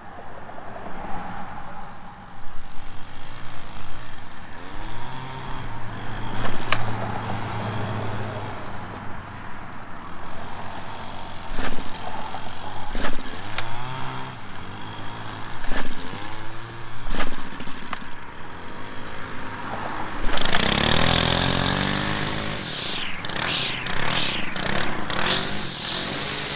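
Stihl FS 190 R two-stroke string trimmer running, its engine revving up and dropping back again and again as it cuts. About twenty seconds in, a much louder, steady rushing noise takes over, with sweeping changes in its high range.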